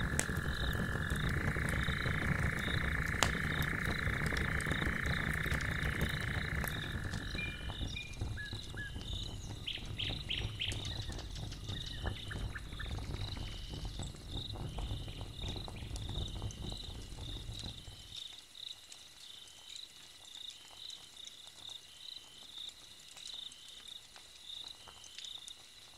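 Log fire crackling, with night insects chirping in an even, steady rhythm. A steady high drone stops about seven seconds in, and the low rumble beneath the crackle drops away about eighteen seconds in.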